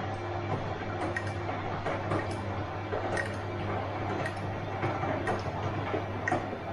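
Bosch washing machine running a wash: a steady low motor hum, with water sloshing and laundry tumbling in the turning drum and irregular small knocks.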